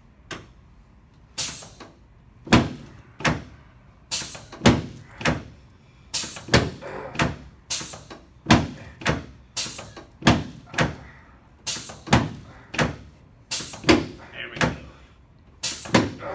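Repeated sharp thumps, a little under two a second and some two dozen in all, from a hands-on chiropractic treatment of a patient lying on the table.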